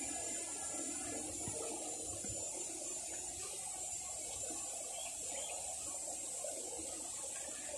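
LYZRC L900 quadcopter's brushless motors buzzing steadily while flying overhead at a distance, over a steady high-pitched hiss.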